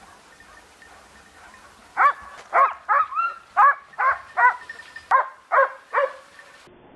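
Hunting dog barking in a quick run of about nine short, high barks, starting about two seconds in, as it chases a wild boar through the brush.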